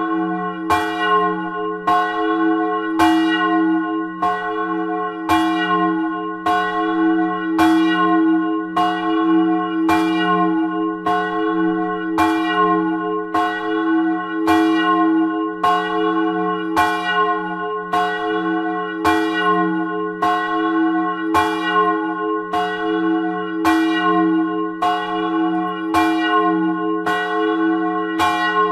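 The Sturmglocke, a 1100 kg church bell tuned to F-sharp (fis'), cast in 1957, swinging and ringing on its own. Its clapper strikes at an even pace, a little more often than once a second, and each stroke rings on into the next.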